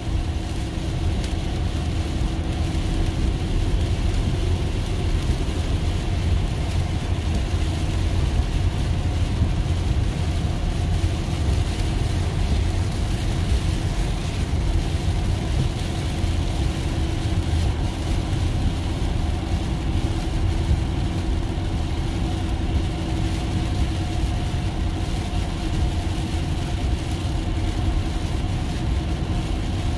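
Steady road and tyre noise heard inside an electric car's cabin while driving on a rain-soaked highway: a low, even rumble of wet tyres and spray with no engine note.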